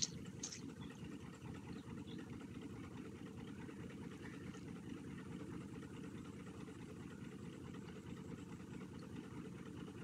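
Steady low rumble of an idling engine, even throughout with no separate knocks or calls.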